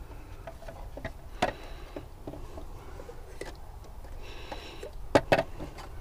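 Scattered light clicks and a brief rustle as hands handle the spark plug leads and ignition coil pack in a Mini's engine bay.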